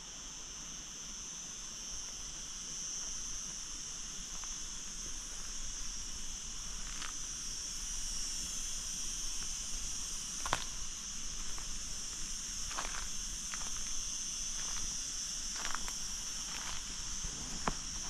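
Steady, high-pitched chorus of crickets, with scattered short clicks and rustles, the sharpest about ten seconds in.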